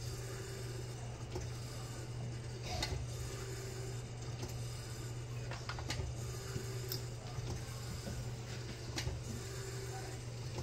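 Steady low hum of running lab equipment, with a handful of light clicks and taps from a glass slide and a plastic blood tube being handled on the bench.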